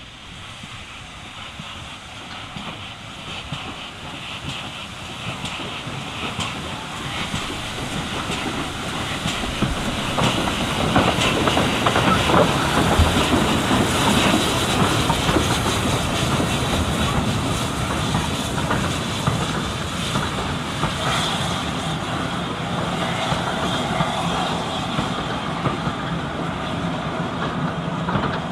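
Steam locomotive hauling a train of coaches past close by. It grows louder over the first dozen seconds as the engine approaches, then the coaches' wheels clatter over the rail joints as they roll past.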